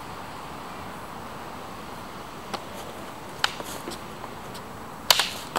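Wooden practice rapiers clacking together in sparring: a few single light taps, then a quick flurry of sharper clacks near the end.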